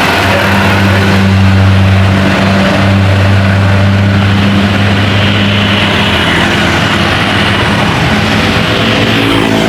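Large tour bus's diesel engine running with a steady low drone.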